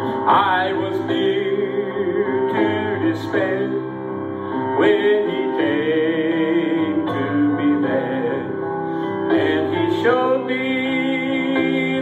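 Live gospel song: piano accompaniment under a melody held on long notes with vibrato.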